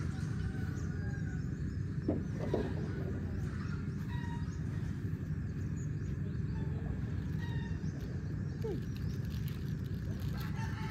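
Roosters crowing and birds calling now and then, faint, over a steady low background rumble.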